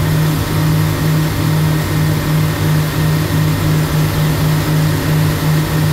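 A boat's engine running steadily under way, a loud low drone that pulses about three times a second, over a steady hiss.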